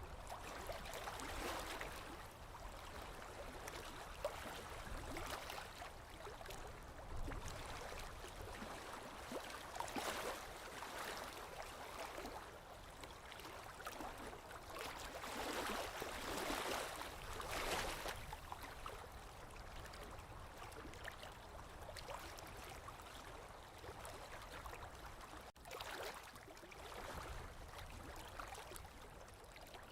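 Small waves lapping on a lakeshore, coming in irregular washes that swell and fade, the strongest around ten seconds in and again between about fifteen and eighteen seconds.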